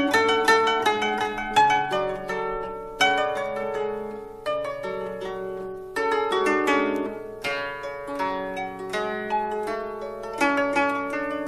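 Background music on a plucked string instrument: quick runs of notes, each struck sharply and ringing as it fades.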